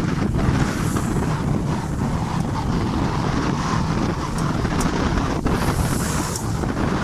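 Wind blowing hard across the microphone on the deck of a sailing yacht under sail, with the rush of choppy sea water along the hull. It holds steady throughout.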